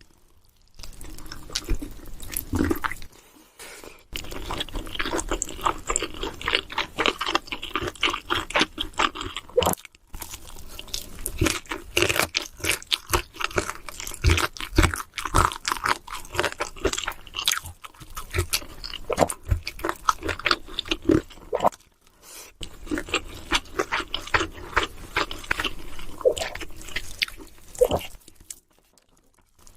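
Close-miked eating sounds: food being bitten and chewed with rapid, crisp crunching, broken by a few short pauses.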